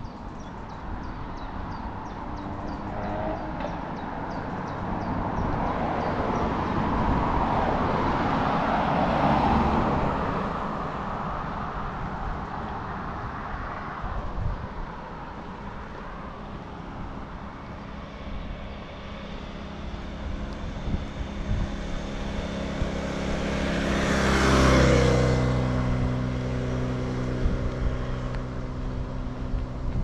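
Cars passing on a street: one swells and fades about a third of the way in, and a second passes near the end, with an engine's steady hum building before it and continuing after.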